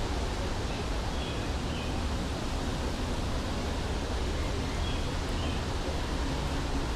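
Steady outdoor ambience: an even noise with a deep rumble underneath, and a few faint short high tones about a second in and again about five seconds in.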